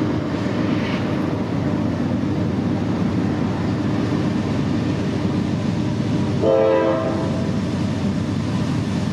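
Norfolk Southern diesel freight locomotives running steadily under load as they haul a train across a steel trestle. A short horn blast sounds about two-thirds of the way through.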